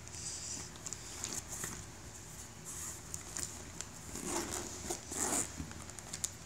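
Handling noise of frozen plastic water bottles and a soft-sided cooler: scattered small clicks, crinkles and light knocks, with a few short rustling scrapes.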